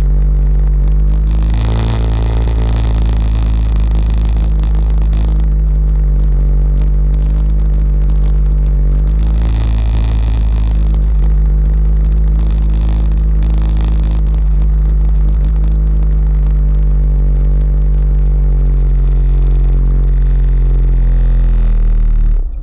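ATV engine running steadily as the quad rolls along at low speed, heard up close from a camera mounted on it, picking up for a moment about two seconds in and again around ten seconds in.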